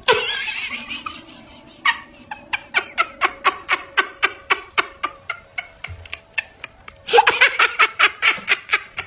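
Laughter in quick, even bursts of about four a second after a short noisy opening, louder and fuller near the end.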